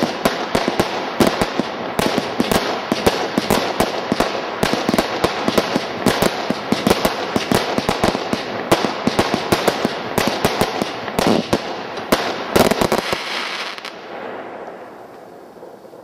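'Total Turmoil' single-ignition firework barrage firing its finale: a rapid, dense run of bangs and crackles. A last cluster of loud reports comes near the end, then the crackling dies away.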